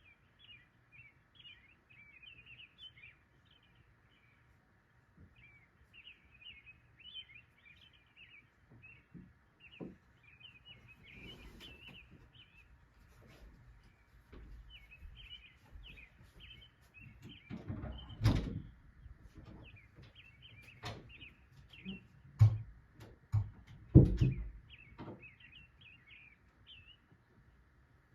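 Small birds chirping in rapid high twitters, one after another, over a faint steady hiss. A few loud low thumps break in about two-thirds of the way through and again near the end.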